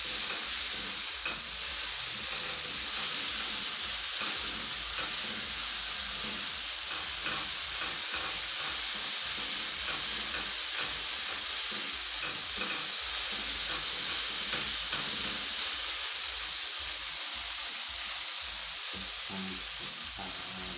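Omena (small fish) sizzling steadily as they fry in a pan, with the stirring spoon scraping and turning them now and then.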